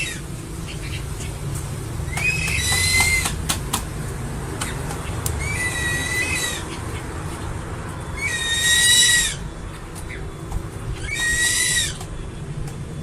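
An eagle calling: four high, whistled calls, each about a second long, that slur upward at the start and then hold level, spaced about three seconds apart.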